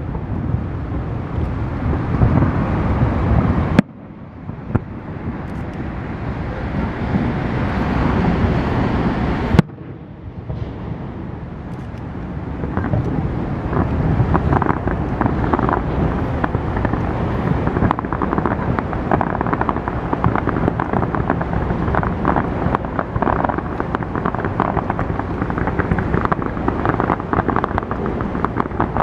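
Wind buffeting a compact camera's microphone over a steady low rumble, broken off abruptly about 4 and 10 seconds in. From about 13 seconds on there is dense, rapid crackling.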